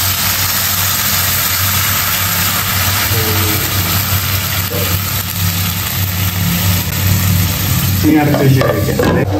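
Food sizzling in a hot pan on the stove over a steady low hum, with a brief voice near the end.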